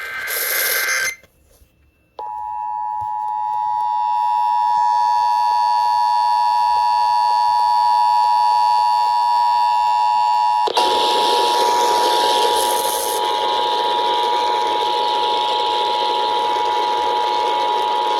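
The end of an Emergency Alert System header data burst, a brief pause, then the EAS attention signal: a loud, steady two-tone alert tone broadcast over FM radio. About eight seconds into the tone, radio static and hiss come up under it, and the tone holds on through the rest.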